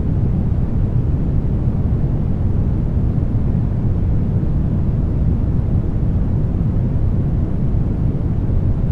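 Steady brown noise: an even, deep rumbling hiss with most of its weight in the low end and little in the highs, unchanging throughout.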